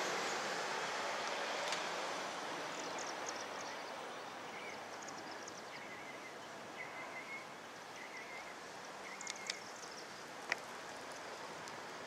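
Outdoor background noise, a steady rushing sound that fades over the first few seconds, with small birds chirping faintly in the middle and a sharp tick near the end.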